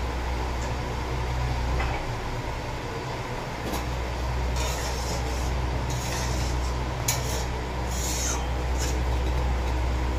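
Crab curry bubbling at a boil in an aluminium pot on a gas stove, under a steady rumble, with short scraping strokes of a metal spatula stirring it against the pot in the second half.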